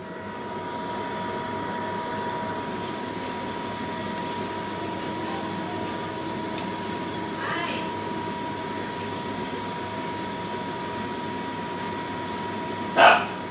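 A steady machine hum with a constant whine in it, like a small fan or motor running, and a short loud sound near the end.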